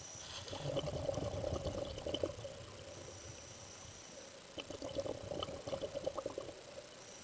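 Scuba diver breathing through a regulator underwater: a bubbling exhalation, a short hissing inhalation about three seconds in, then another bubbling exhalation.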